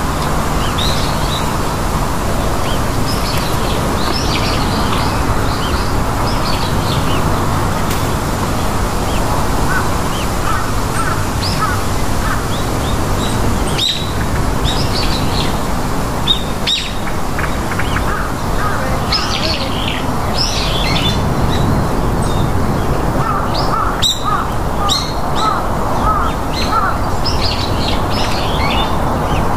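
Several small birds chirping and twittering on and off, over a steady background hiss, with a few sharp clicks.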